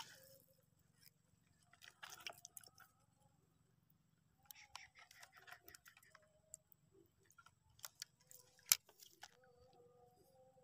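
Faint, scattered clicks and rustles of fishing gear being handled at a wire keepnet and rods, with one sharper click near the end. A faint steady tone comes in just before it ends.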